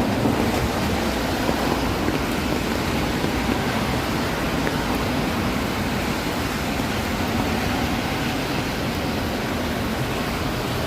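Steady city street noise: a constant rush of passing traffic with no distinct events.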